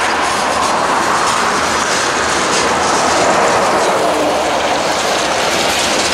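Freight train of tank cars and covered hoppers rolling past close by: a steady, loud rumble of steel wheels on rail with a running clatter of wheel clicks.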